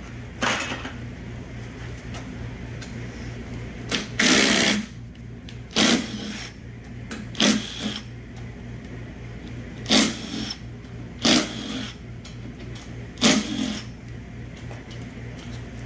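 Cordless power driver spinning out 8 mm bolts around a 6L80 transmission's oil pump assembly, in about seven short bursts of half a second or so, over a steady low hum.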